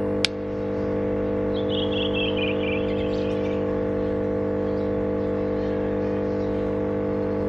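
Electric air pump of a Merkel Optima cold-smoke generator humming steadily on its full setting, blowing air into the wood-chip chamber. A single sharp click sounds near the start as the lighter is struck at the chips.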